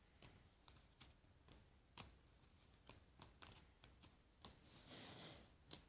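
Faint, quiet ticks and flicks of glossy cardboard trading cards being lifted off a stack one by one and dropped onto a pile, at an uneven pace, with a brief soft rustle of cards sliding against each other near the end.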